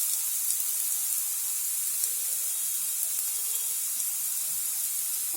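Ghee sizzling steadily under a multigrain thalipeeth flatbread frying on a nonstick griddle.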